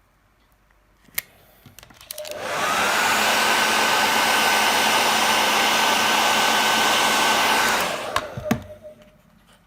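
Hot-air blower switched on and running steadily for about five and a half seconds, a rushing blast with a high fan whine that rises as it starts up and falls away as it is switched off; it is heating the phone's info sticker to soften its adhesive. A sharp click comes about a second in, before it starts, and a few knocks follow after it stops.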